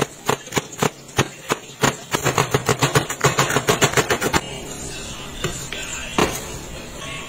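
Large kitchen knife chopping a red onion on a wooden cutting board: a quick run of blade knocks on the board, about five a second, that stops about four seconds in, followed by a single knock near the end.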